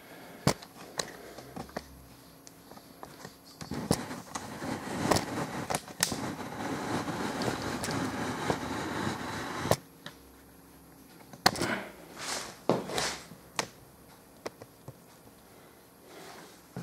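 Handling noise as the camera is moved and repositioned: a rustle of several seconds that cuts off suddenly, with scattered knocks and clicks before and after it.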